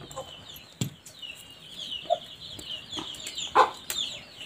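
Chickens clucking, with many quick, high, falling chirps throughout and a louder single cluck about three and a half seconds in. A sharp knock just under a second in.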